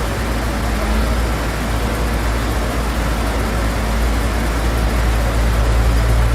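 Engine of a vehicle or heavy machine running steadily with a deep, low rumble and a constant wash of mechanical noise.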